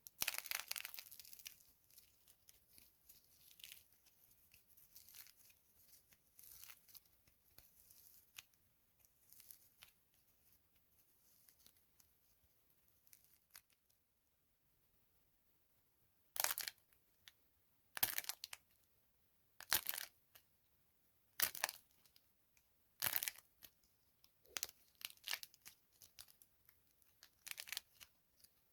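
Dry soap boxes being crushed and crumbled: a loud crackling crumble at the start that thins out into scattered crackles, then, after a short pause, a run of separate crisp crunches about every second and a half.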